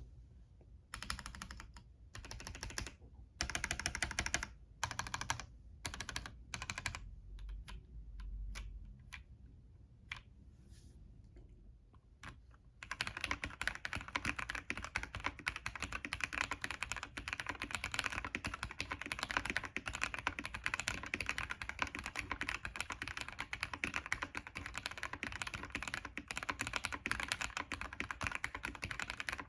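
Womier V-K66 gasket-mount mechanical keyboard with prelubed red switches being typed on: scattered keystrokes and short bursts at first, then, about 13 seconds in, continuous fast typing on the modded board with tape mod, shelf liner and polyfill foam.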